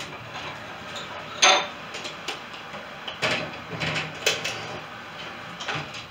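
Oven door pulled open with a loud clank about a second and a half in, then a metal baking pan clinking and scraping against the oven rack as it is taken out.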